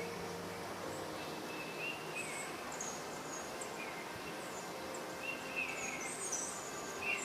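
Outdoor ambience: a steady background hiss with small birds chirping in short phrases every second or two.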